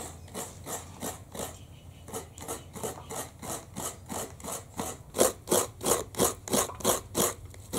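A piece of mature coconut being grated by hand: a steady run of short rasping strokes, about three a second, which grow louder about five seconds in.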